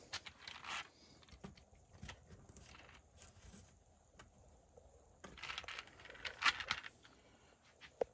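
Small metal hinge pins and screws from an RC truck clicking and clinking as they are handled and set down: a scatter of light, sharp clicks, with a longer run of rattling clatter a little past the middle.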